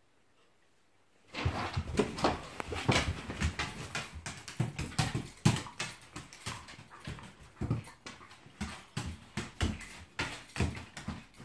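Two dogs play-fighting: a busy, irregular run of short whines, mouthy dog noises and paws scuffling on a wooden floor, starting about a second in.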